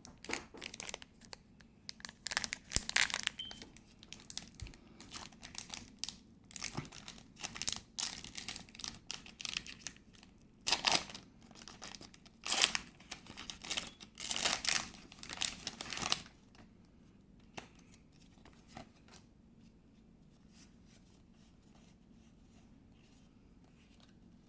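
Pokémon Dragon Majesty booster pack's foil wrapper being torn open and crinkled by hand: a run of sharp rips and rustles for about sixteen seconds, then only faint handling sounds.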